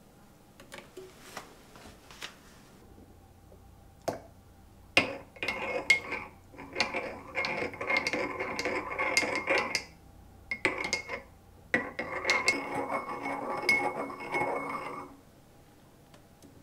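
A spoon stirring a drink in a ceramic mug, clinking quickly and repeatedly against the sides, in two spells of several seconds each with a short pause between. Before that, faint sounds of hot water being poured into the mug.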